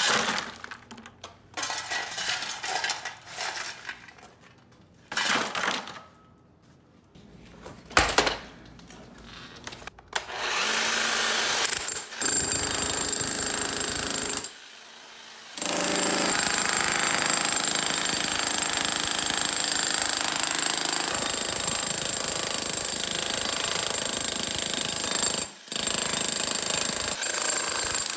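Broken concrete chunks scraped up with a steel shovel and tipped clattering into a plastic bucket, then from about ten seconds in an electric chipping hammer runs steadily, chiselling out a saw-scored concrete slab. It stops briefly twice.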